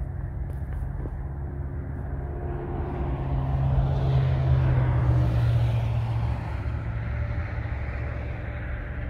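Road traffic on a highway: one vehicle's tyre and engine noise swells to a peak about four to five seconds in and fades again, over a steady low rumble.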